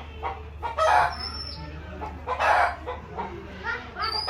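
Chickens clucking and squawking in short, loud calls, two of them standing out about a second and two and a half seconds in, over a steady low hum.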